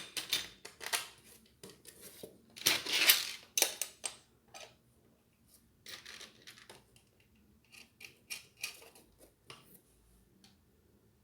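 Ceiling fan parts being handled during blade assembly: irregular metallic clicks, taps and clatter of small parts and screws, with a longer scraping rustle about three seconds in.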